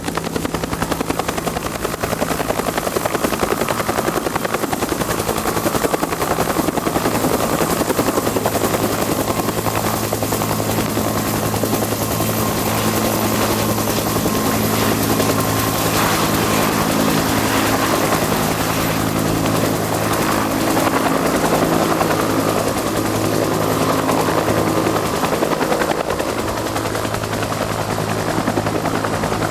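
Bell UH-1 Huey helicopter running, its two-blade main rotor beating rapidly and steadily over the steady whine of its turbine engine.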